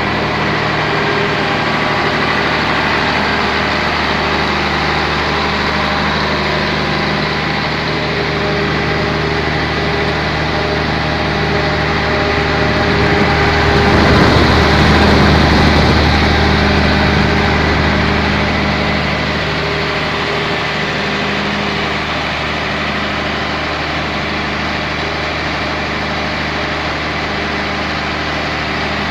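Volvo Penta diesel engine of a 300 kVA open-frame generator set running steadily on test. It swells louder for a few seconds about midway, then settles back to its even drone.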